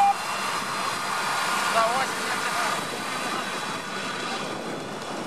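An off-road vehicle straining in a bog, heard as a steady rush of engine and mud noise, with a short high squeak at the very start and faint distant voices about two seconds in.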